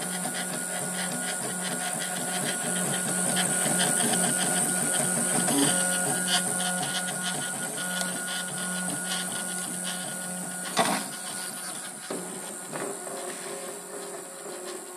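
Stepper motors of a small homemade RepRap 3D printer running, a steady electric hum and whine with rapid ticking as the axes step. A single sharp knock about eleven seconds in.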